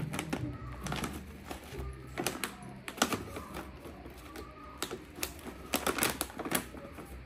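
Irregular sharp crinkles and taps as a baby monkey paws at a paper-and-plastic bag and moves on a wooden dresser top.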